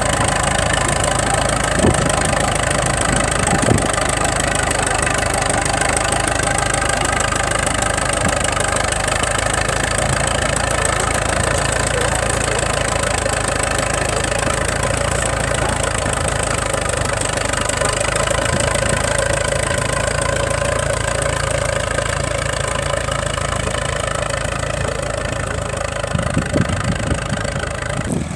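An engine running steadily at a constant speed, with a couple of short knocks a few seconds in.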